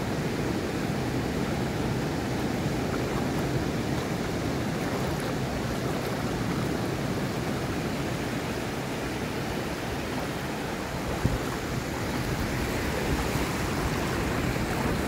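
Ocean surf washing in over a shallow beach: a steady rush of breaking waves, with one short knock about eleven seconds in.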